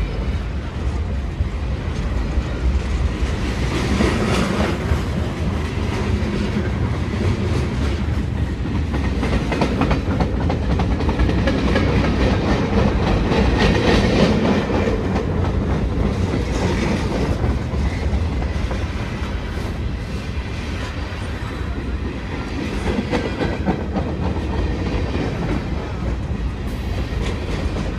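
BNSF freight train rolling past, its cars rumbling steadily with the wheels clicking and clattering over the rail joints.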